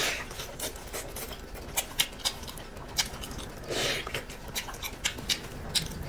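Close-miked eating sounds: irregular crisp clicks of chewing and wet mouth noises, with a short breathy inhale or slurp about four seconds in.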